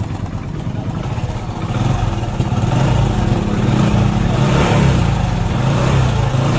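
Hero Passion X Pro i3s's 110 cc single-cylinder engine running with timing chain noise; the chain has gone slack. It gets louder about two seconds in.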